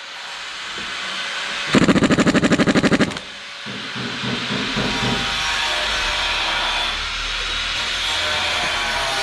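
Compressed air hissing from a workshop air line, with a pneumatic tool rattling rapidly for about a second and a half near the start, then a steady hiss over a low hum.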